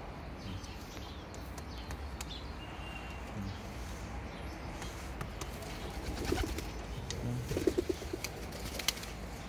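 Racing pigeons cooing, the low pulsing coos loudest about six to eight seconds in, with a few light sharp taps.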